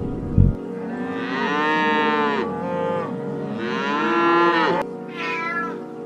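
Three drawn-out animal calls. The first two are long, rising then falling in pitch, and the third is shorter with a falling pitch. A thump comes just before the first call, and steady background music runs underneath.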